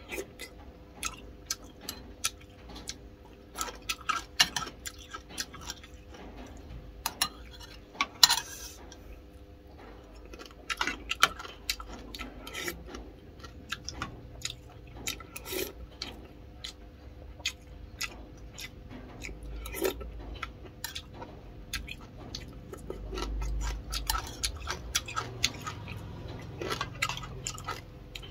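Metal spoon clinking and scraping against a ceramic soup bowl many times, with chewing and eating sounds between, over a faint steady hum.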